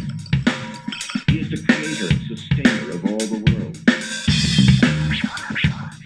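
Music with a strong drum-kit beat, with bass drum and snare hits, playing through an Awei Y370 Bluetooth speaker.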